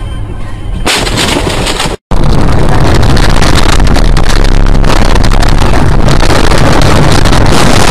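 Loud, steady rushing noise of a moving vehicle, with wind and road noise on a dashcam microphone close to overloading. It breaks off in a brief cut to silence about two seconds in and resumes at full level.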